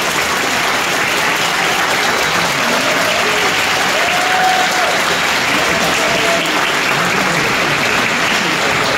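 Audience applauding steadily, with a few voices calling out above the clapping.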